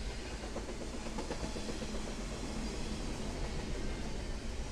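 Double-stack container cars of a fast CSX intermodal freight train rolling past: a steady rumble of steel wheels on rail, with a few wheel clicks about a second in.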